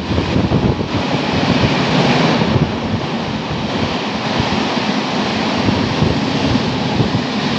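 Express train coaches passing close by at speed: a loud, steady rush of wheels on rail and moving air, with no let-up.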